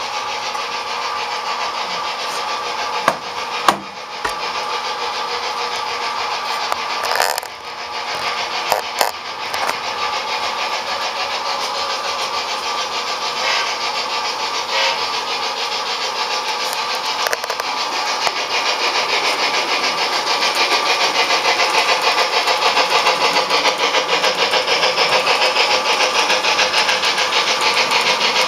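Bachmann EM-1 HO-scale model articulated steam locomotive running with its onboard sound, a steady rhythmic steam chuff over the running noise of the train on the track. It grows louder over the second half as the train comes closer, with a few sharp clicks in the first ten seconds.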